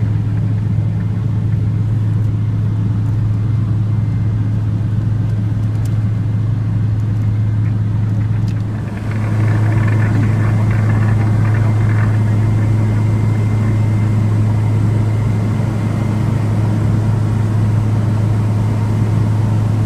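Steady engine drone inside the cabin of a small aircraft in flight, one strong low hum with fainter tones above it. It briefly dips about nine seconds in, then carries on.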